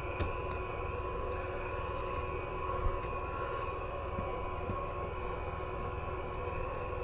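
Steady droning hum with several held tones, with a few faint clicks on top.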